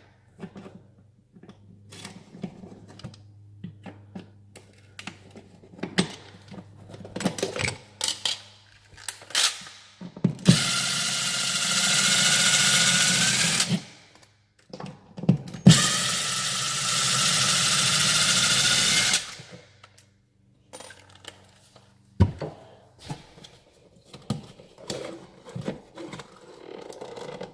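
Power drill/driver running twice, about three and a half seconds each, with a steady whine, backing out the screws of a GFCI receptacle. Scattered clicks and handling knocks come before, between and after the runs.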